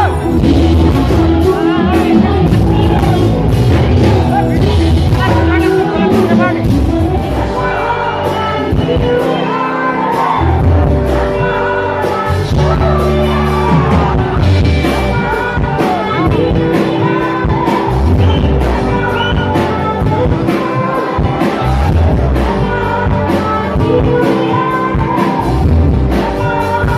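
Live band music with a woman singing into a microphone, amplified through stage speakers, with keyboard and guitar in the band and a steady low beat.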